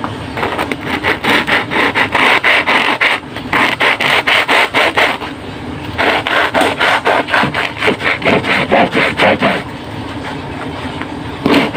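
Knife sawing through the crunchy crust of a freshly baked baguette, in quick back-and-forth rasping strokes at about four a second. There are two bouts with a short pause about five seconds in, and the cutting stops near the end.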